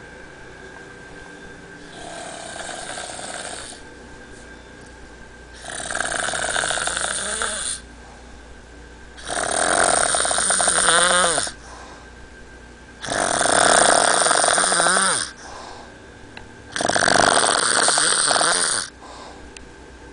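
Loud snoring of a sleeper: five long snores, one every three and a half to four seconds, the first much fainter than the rest.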